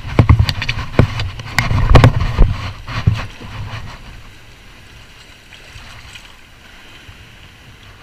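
A run of knocks and low rumbling on the microphone over the first three seconds, then a steady, quieter wash of wind and surf.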